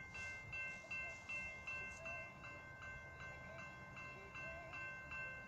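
Railroad crossing warning bell ringing steadily, about two and a half strokes a second, with the crossing activated and the gates down for an approaching train.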